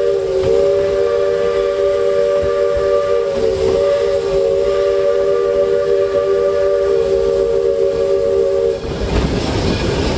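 A 1912 two-truck Shay steam locomotive's whistle blows one long, steady blast of several tones at once, cutting off abruptly near the end. After it the train's running rumble and clatter are heard.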